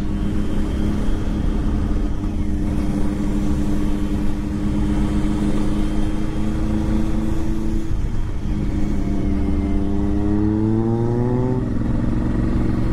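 Honda XL1000 Varadero's V-twin engine with an aftermarket GPR exhaust, running under way at steady revs. After a short break about eight seconds in, the revs rise for about three seconds and then drop near the end. There is low wind noise on the microphone.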